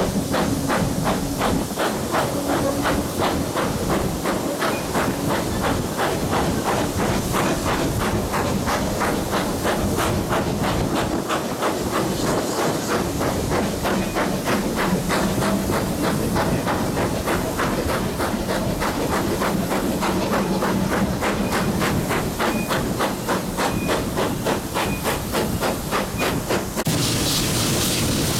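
Steam locomotive working, its exhaust beating evenly about twice a second over a steady hiss of steam. Near the end it gives way abruptly to a brighter, steadier hiss.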